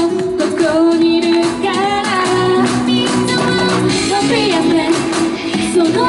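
Upbeat J-pop song with female group vocals over a steady beat.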